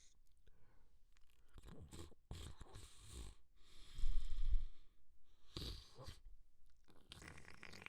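A person's nose sounds: a run of short, wet sniffles, then one longer, louder blast of air through the nose about four seconds in, and another stretch of nasal blowing near the end.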